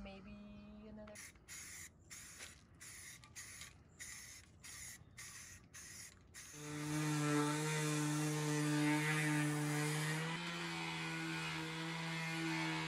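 An aerosol spray-paint can hissing in about nine short bursts. Then a cordless electric string trimmer runs with a steady motor whine, its pitch stepping up slightly about ten seconds in.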